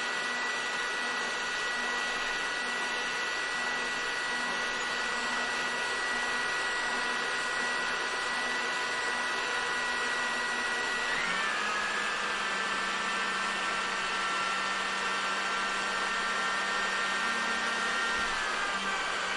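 Hair dryer running steadily: an even rushing blow with a motor whine above it, which shifts slightly lower in pitch about halfway through and again near the end.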